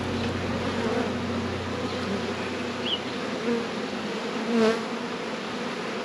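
Honeybees buzzing: the steady hum of many bees, swelling briefly about four and a half seconds in.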